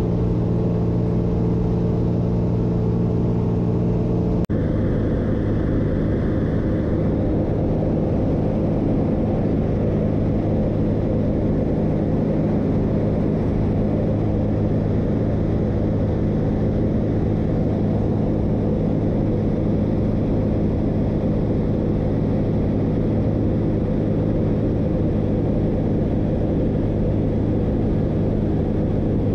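Ultralight aircraft engine and propeller droning steadily, heard from inside the cockpit with rushing air. About four and a half seconds in the sound breaks off abruptly and resumes with a changed engine note and more wind noise.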